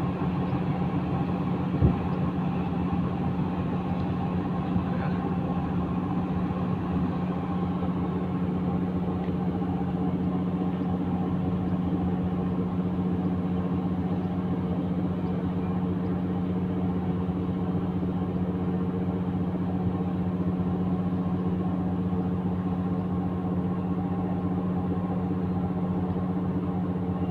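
Steady drone of a passenger ferry's engines, a strong even hum with several higher steady tones above it. A single light knock about two seconds in.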